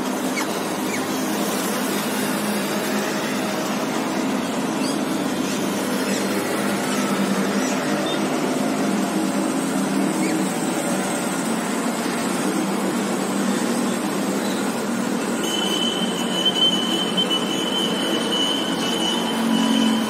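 Steady city traffic noise with a low hum, and a thin, high, steady squeal held for about four seconds near the end.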